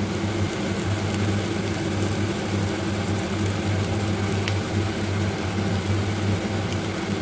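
A steady low hum runs throughout, over a faint hiss from onions, capsicum and tomato frying in oil in a steel pan on a gas stove. There are a couple of faint ticks.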